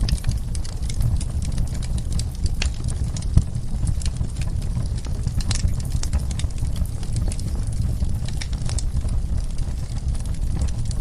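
Wood fire in a fireplace crackling, with irregular sharp pops over a steady low rumble, one pop standing out about a third of the way in.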